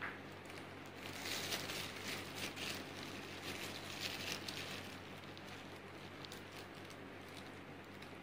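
Faint rustling and crinkling of a plastic piping bag being handled and squeezed, loudest in the first few seconds, over a low steady hum.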